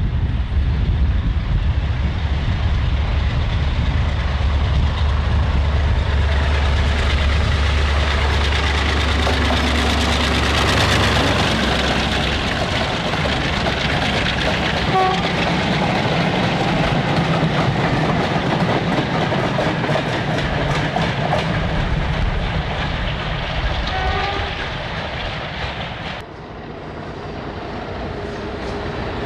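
Class 35 Hymek diesel-hydraulic locomotive hauling a passenger train past: a deep, steady engine drone that swells as it draws level about ten seconds in, then the coaches' wheels clattering over rail joints as the train pulls away. About 26 seconds in it cuts abruptly to the quieter sound of another diesel-hauled train approaching.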